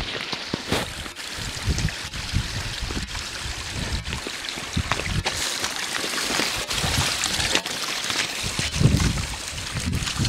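A small stream trickling and splashing over stones, a steady hiss, with irregular low thumps of footsteps and camera handling.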